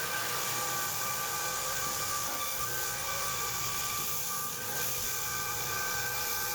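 Floor sander running steadily on hardwood flooring: an even hiss with a constant high whine from the machine.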